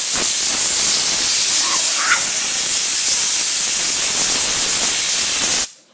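Steady loud hiss of rushing blown air that cuts off suddenly near the end.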